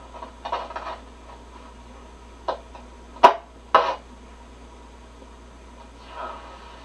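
Static crackles and crashes from a Grunow 1191 tube radio's loudspeaker as it is tuned between stations: a few sharp pops, the loudest about three seconds in, over a steady low hum. The owner suspects dirty contacts on the tuning capacitor plates.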